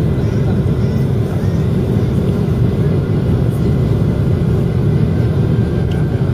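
Steady low rumble of a Boeing 767's engines and rushing airflow, heard inside the passenger cabin over the wing during final approach with flaps extended.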